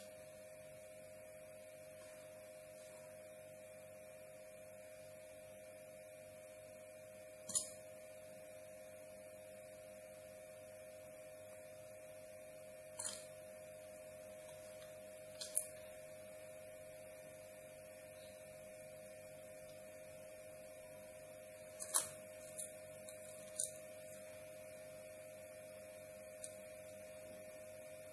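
Faint steady electrical hum, with several small sharp clicks and taps scattered through it, a cluster of them about two thirds of the way in.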